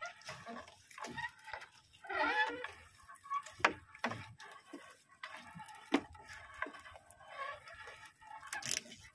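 Wet monofilament gillnet being hauled and handled by hand in a small wooden outrigger boat: water dripping and splashing off the mesh, with a few sharp knocks against the boat and a faint call in the background about two seconds in.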